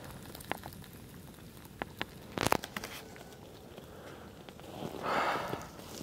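Wood campfire crackling with scattered pops and snaps, a loud cluster of snaps about halfway through. A brief rush of noise comes near the end.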